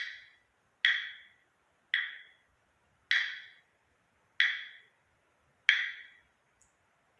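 Six single strikes on a small percussion instrument, each ringing briefly and dying away, spaced a little over a second apart and slowing slightly toward the end. They stand in for the first raindrops falling.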